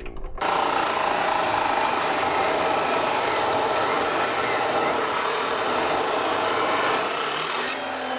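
Metal-cutting chop saw cutting through thick-walled steel square tubing at a 45-degree angle: an even, harsh cutting noise that starts abruptly just under half a second in. Near the end the noise drops away, leaving the saw's motor running more quietly.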